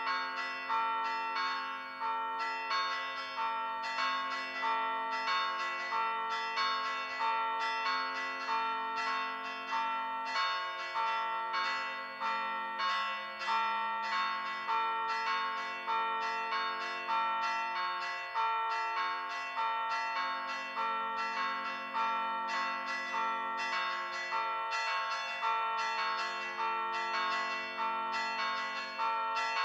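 Church bells played by pritrkavanje: the clappers of stationary bells are struck by hand against the rims in a rapid, even, repeating rhythm. Several bell tones ring on between the strokes.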